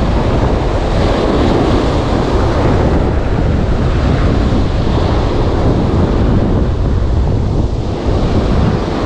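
Surf breaking and washing up a steep shore, with heavy wind buffeting the microphone.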